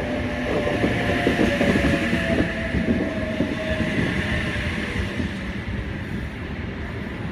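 Sydney Trains Oscar (H set) electric train rolling slowly into the platform, its wheels clattering and knocking over the rails. The clatter eases about halfway through as the train slows to a stop.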